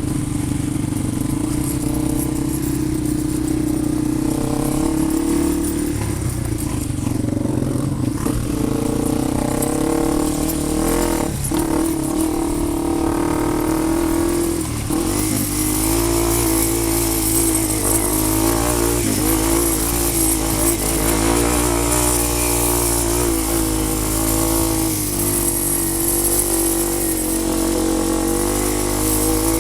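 Engine of a small off-road vehicle running steadily at a near-constant pitch, wavering a little in speed, with a bit more hiss from about halfway.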